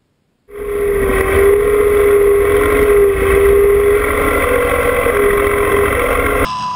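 John Deere 2305 compact tractor's three-cylinder diesel engine running loudly under way, with a steady whine over the engine noise. Near the end the sound drops abruptly to a quieter, higher-pitched whine.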